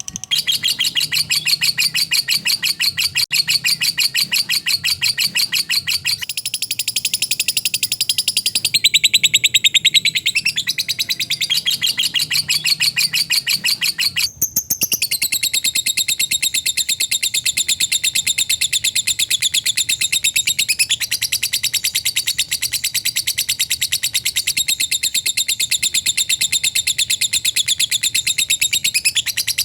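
Lovebird 'ngekek': a long, very fast, unbroken chatter of shrill repeated notes, with a short break about halfway.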